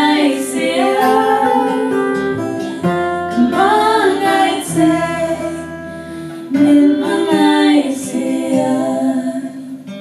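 Women's voices singing a slow worship song to acoustic guitar, in three sung phrases over held chords, fading lower near the end.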